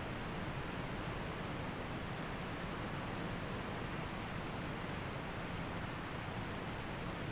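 Waterfall and rushing creek water making a steady, even roar of white water.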